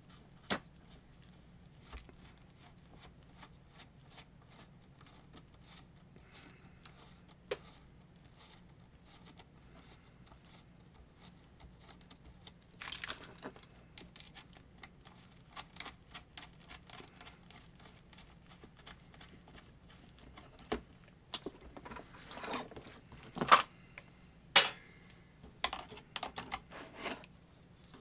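Small rotary-tool parts being handled: scattered clicks and clinks of metal and plastic, one sharp clack about halfway through, and a busier run of clicks and scrapes near the end as a flex shaft is fitted and screwed on. A faint low hum runs underneath.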